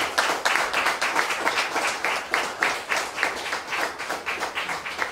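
A small group of people applauding, many hand claps in quick succession.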